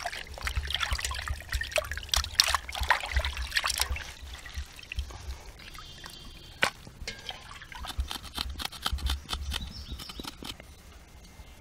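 Raw chicken pieces being swished and squeezed by hand in a steel bowl of water, with splashing and water dripping back into the bowl. The splashing is busiest in the first few seconds, then thins out to scattered drips and small knocks.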